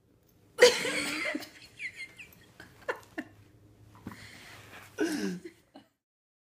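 Short bursts of laughter, loudest about half a second in and again near five seconds, with short squeaky sounds between them, over a faint low hum.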